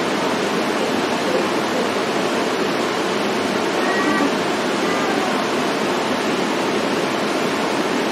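Steady rushing of falling water from an indoor waterfall, with two faint short chirps about four and five seconds in.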